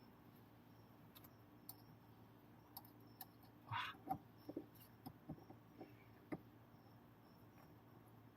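Faint scattered clicks and light taps of small parts being handled over a low steady hum, with a brief rustle about four seconds in.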